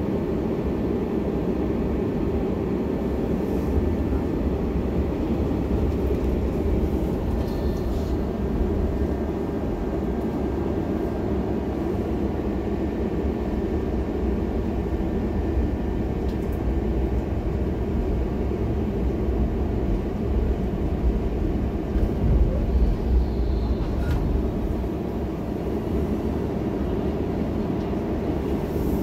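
Helsinki city tram running along its tracks, heard from inside at the front: a steady low rumble of wheels on rails and the running gear.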